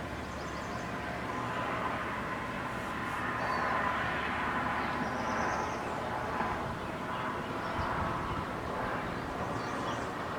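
Outdoor ambience dominated by the rushing rumble of distant vehicle traffic, swelling for a few seconds in the middle as if something passes, with a few faint bird chirps above it.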